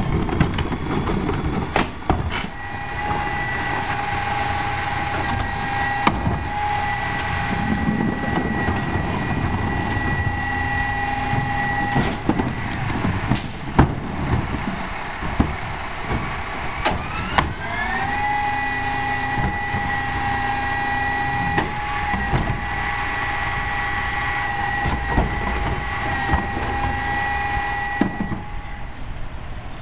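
Heil 5000 rear loader's hydraulic packer running on a Peterbilt 320, whining steadily as it cycles, twice: from a couple of seconds in to about twelve, then again after a rising whine as the engine speeds up, until near the end. Sharp knocks of plastic garbage carts being banged and handled come in between.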